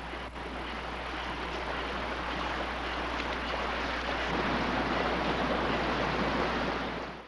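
Shallow forest stream running over rocks, a steady rushing hiss that swells slightly after the middle, over a low steady hum, and cuts off suddenly at the very end.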